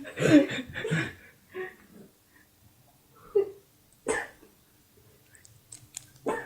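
A person coughing and clearing the throat a few times, in short separate bursts with pauses between.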